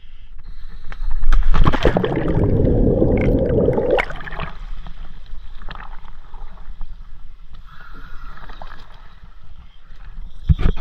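Scuba diver's exhaled bubbles gurgling from the regulator underwater, one loud burst lasting about three seconds that stops abruptly. Softer hissing and small clicks follow.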